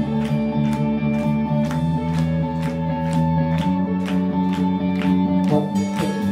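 Live rock band playing an instrumental passage: electric guitar chords ring over a bass guitar line and a steady drum beat, about three hits a second, with no singing.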